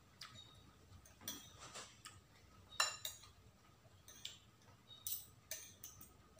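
Metal spoon and fork clinking and scraping against a bowl of rice while eating: a scatter of light clinks, the sharpest about three seconds in.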